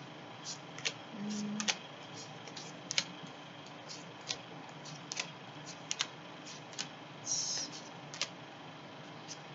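Tarot cards being dealt and laid down on a table: irregular light clicks and taps as each card is set down, with a short swish of a card sliding about seven seconds in.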